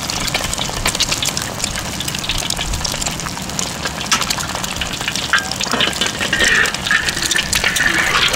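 Eggs frying in hot oil in a steel wok: steady sizzling with many sharp crackles and pops, growing denser in the last couple of seconds.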